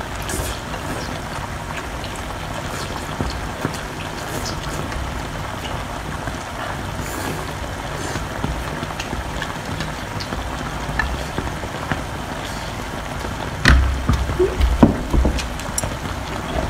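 Eating sounds: wet chewing and slurping of whole octopus, with scattered small clicks over a steady hiss. A few louder low thumps come near the end.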